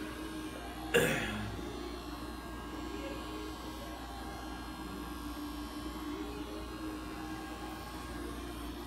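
Corded electric hair clippers buzzing steadily as they shave a man's head. A single sudden sharp sound about a second in is the loudest moment.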